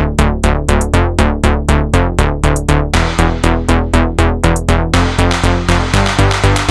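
Electronic dance music with a fast, steady beat.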